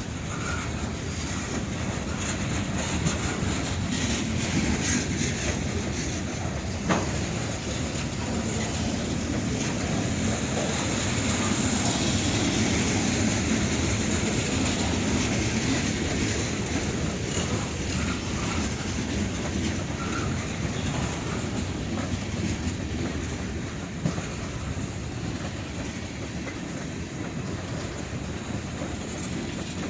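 Norfolk Southern freight train rolling by, its wheels clattering steadily over the rail joints, with a few sharper clanks.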